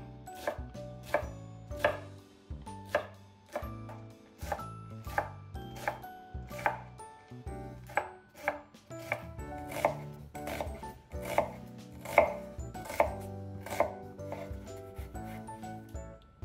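Chef's knife chopping cabbage on a wooden cutting board: a steady, unhurried run of sharp knocks of the blade on the wood, about one or two a second.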